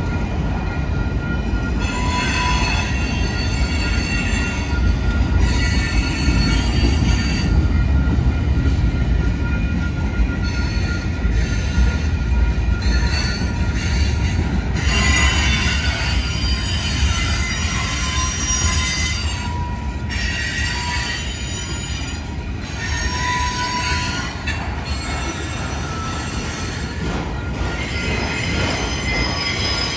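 Freight cars of a Union Pacific manifest train rolling past: a steady low rumble of steel wheels on rail, with high-pitched wheel squeal coming and going.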